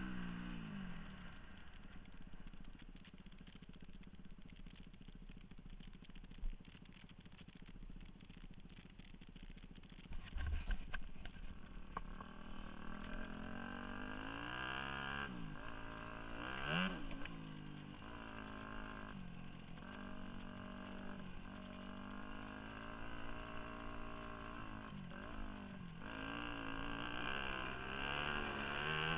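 The four-stroke single-cylinder engine of a 2002 Yamaha YZ250F dirt bike, heard from the rider's helmet camera, revving up and down through the gears while riding a dirt trail. It runs quieter at first and louder and busier from about ten seconds in, with a couple of sharp thumps from bumps.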